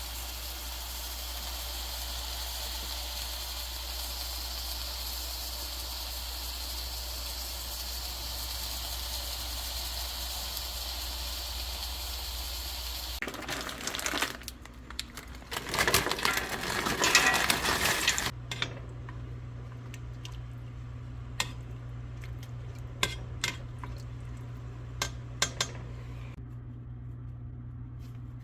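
Kitchen sounds. A steady hiss for about the first half, then a few seconds of louder clattering, then a low steady hum with scattered clinks of dishes and cutlery.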